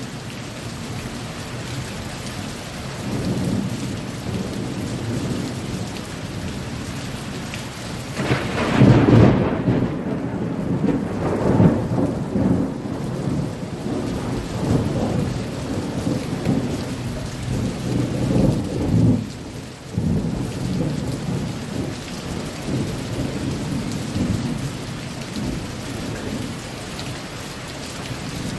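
Steady rain with a thunderstorm: low rolling thunder, then a loud thunderclap about eight seconds in that rumbles on for about ten seconds before settling back into rain and distant rumble.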